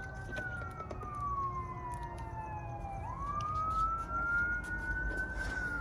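An emergency vehicle siren wailing in a slow up-and-down sweep: its pitch falls over about three seconds, rises again, and starts to fall once more near the end. A few faint clicks sound under it.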